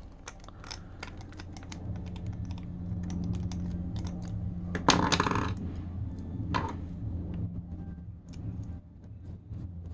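Small parts of a Shimano Vanford spinning reel's handle knob clicking and ticking as they are handled and taken off, with a louder clatter about five seconds in, over a steady low hum.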